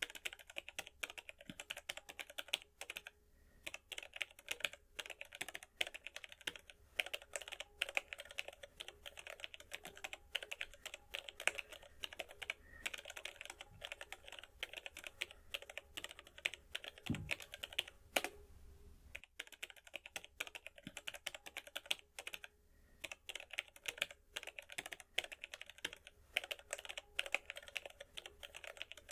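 Computer keyboard typing: a fast, irregular run of key clicks with short pauses now and then, and a single low thud about 17 seconds in.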